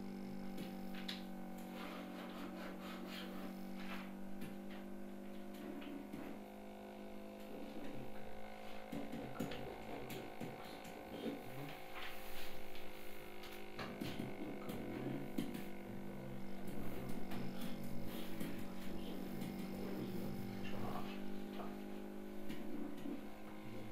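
Steady electrical hum, with faint intermittent muttering and light scattered taps on top.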